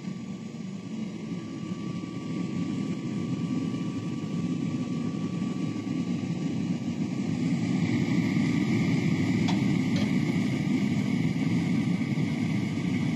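A blacksmith's forge running with its air blast and fire, heating a Damascus steel billet: a steady low roar that grows louder over the first several seconds and then holds, with two faint clicks near the middle.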